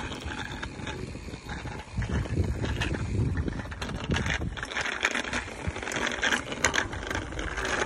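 Wind buffeting the microphone of a camera moving with a bicycle, a low rumble with tyre noise on the paved road. It gets louder about two seconds in, and clicking rattles grow busier in the second half.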